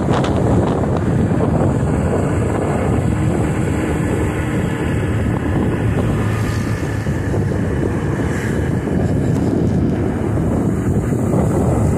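Steady wind rush on the microphone of a moving motorcycle, mixed with the bike's engine and road noise at cruising speed.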